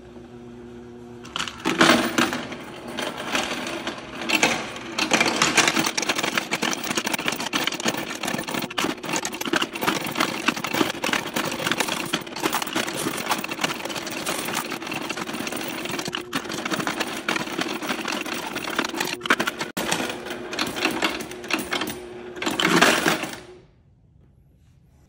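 Cassida C300 electric coin counter and sorter running: a steady motor hum, then a fast, continuous rattle of coins being fed through and dropped into the sorting bins. Near the end it stops abruptly, with its display reporting a full batch.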